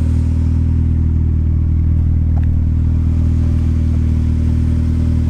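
1988 Mazda 323 GTX's 1.6-litre 16-valve turbocharged four-cylinder idling steadily, a smooth low purr from the exhaust.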